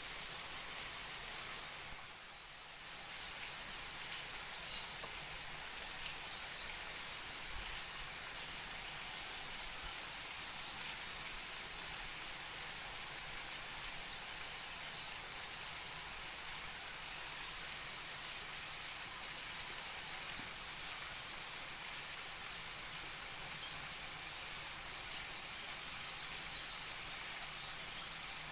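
Steady, high-pitched chorus of forest insects, a continuous shrill drone with a brief dip about two seconds in.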